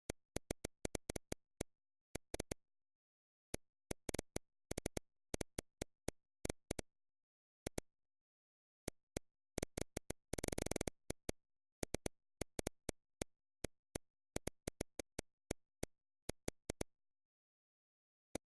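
Sharp, irregular clicking from the computer setup used for the digital painting, in clusters separated by dead silence, with a dense rapid run of clicks about ten seconds in.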